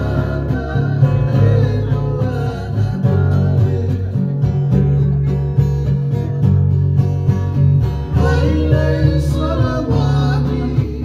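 Fijian serenade string band playing: strummed acoustic guitar over heavy low bass notes, with voices singing.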